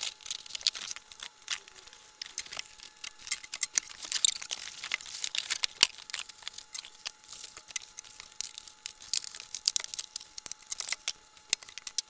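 Cardboard box and foam packing being opened and handled: irregular rustling, scraping and crinkling with many sharp clicks and knocks.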